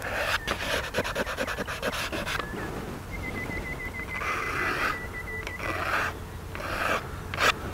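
Charcoal stick scratching across sketch paper: a quick run of short hatching strokes in the first couple of seconds, then a few longer, separate strokes.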